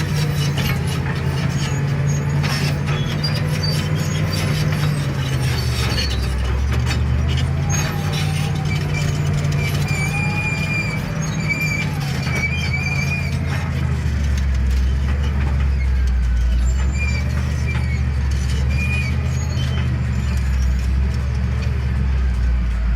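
Cat D7 bulldozer's diesel engine running, its pitch shifting as the revs change, with bursts of high squealing at times and scattered clanks.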